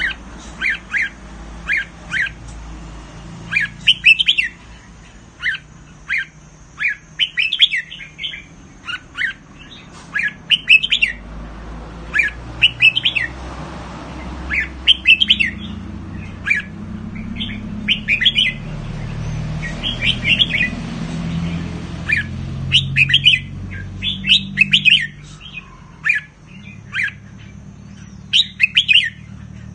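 Red-whiskered bulbul singing short, chirpy whistled phrases, one every second or two, with a low hum underneath.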